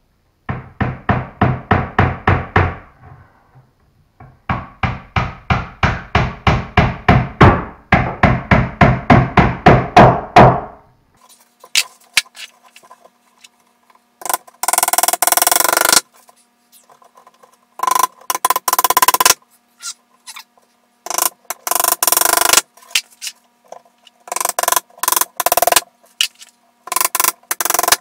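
A claw hammer striking the wooden desk leg and frame in two quick runs of rapid blows, about five a second. Several harsh bursts of a power tool follow, each about a second and a half long.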